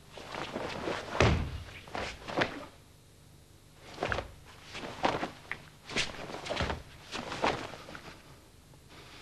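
Karate gi snapping and bare feet thudding on the mat with the blocks, strikes and steps of a Pinan kata: a run of sharp snaps and thuds, the loudest about a second in, with a short pause near three seconds.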